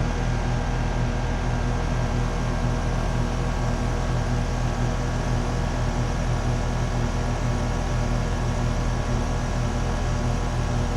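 A 2007 Carrier Base 4-ton R22 central air conditioner condensing unit running steadily just after starting up: the Copeland scroll compressor hums and the condenser fan blows.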